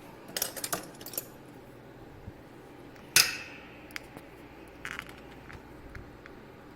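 Small hard metal objects clicking and clinking on a hard work surface as tools and parts are handled: a quick cluster of light clicks near the start, one sharp clink with a short ring about three seconds in, then a few faint taps.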